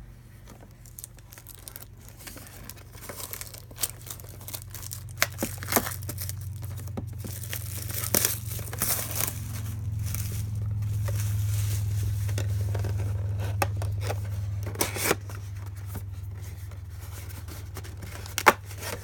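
Plastic wrapping on a trading-card hobby box being torn and crinkled open, with scattered sharp crackles and clicks, over a low steady hum that grows louder in the middle.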